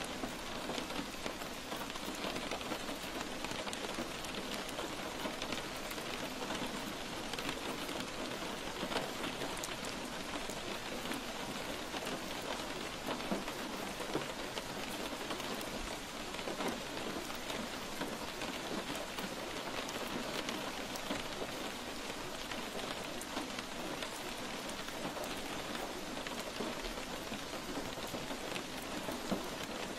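A recording of steady rainfall: an even hiss with many small drop ticks, unchanging throughout.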